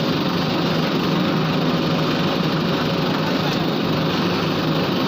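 Heavy diesel engine of earthmoving machinery running steadily under load.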